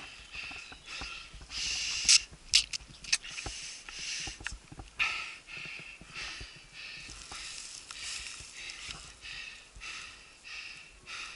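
A mountain biker panting hard and rhythmically, about two breaths a second, while riding a rough forest trail. A quick cluster of sharp clacks from the bike rattling over the ground comes about two to three seconds in.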